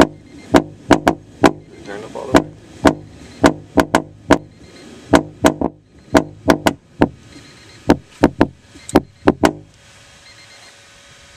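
Old guitar-amp speaker overdriven with bass from a 1000-watt amplifier, giving sharp, irregular clicking knocks a few times a second over a faint low hum. The knocks stop about nine and a half seconds in, leaving only the low hum.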